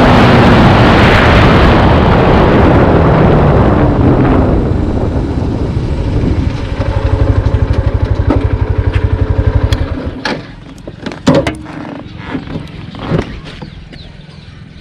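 Hero Xtreme 160R's single-cylinder engine slowing down from speed, with the rush of riding noise dying away. It then idles with an even throb, is switched off about ten seconds in, and a few knocks follow.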